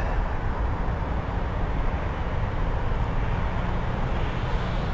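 Steady wind rumbling on the camera microphone, a low, even noise with no distinct events.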